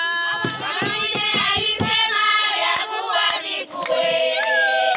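A group of women singing together, with hand-clapping in roughly the first two seconds. About four seconds in, the voices settle onto a long held note.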